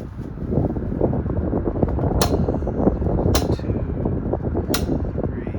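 Frigid 16-inch double oscillation table fan running and oscillating, its airflow buffeting the microphone with a steady low rumble. Three sharp clicks come a little over a second apart.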